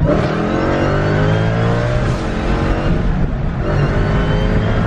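Dodge SRT's V8 engine under hard acceleration, its pitch climbing, dropping at an upshift about two seconds in, then climbing again.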